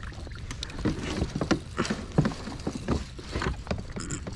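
Scattered light knocks and clicks from handling on a fishing kayak, irregular and close together, over a steady low rumble.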